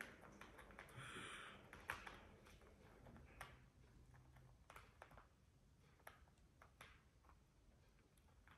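Faint, irregular clicks and crunches of a blue-and-yellow macaw's beak working at a walnut shell held in its foot, with a brief rasping scrape about a second in and the sharpest crack about two seconds in.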